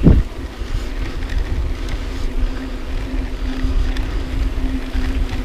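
Wind buffeting the microphone of a moving bicycle rider: a steady low rumble, with a faint steady hum running under it through most of the stretch.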